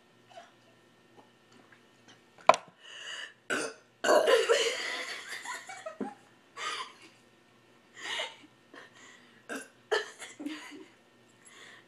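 Deliberate, forced burps from a person. One long, loud burp starts about four seconds in and lasts about two seconds, with a few short burps and bursts scattered before and after it.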